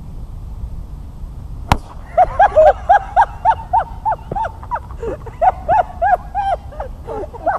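A prank exploding golf ball struck by a club bursts with a single sharp crack about two seconds in. Loud laughter follows in quick rhythmic bursts until the end.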